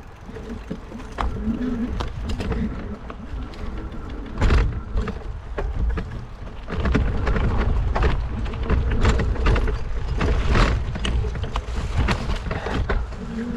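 E-bikes being ridden over a rough off-road trail, with rumbling and many sharp rattles and knocks from the bikes jolting over the ground.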